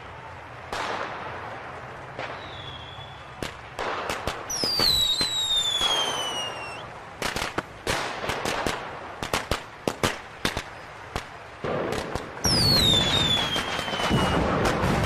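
Fireworks display with shells bursting and cracking in rapid, dense volleys through the middle. Whistling fireworks give long whistles that fall in pitch, one about four seconds in and another near the end. Heavy booms join them near the end.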